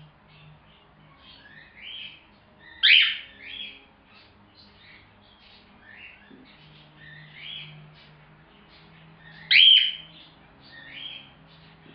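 Young cockatiel chirping: a string of short chirps, with two much louder calls, one about three seconds in and one near the end.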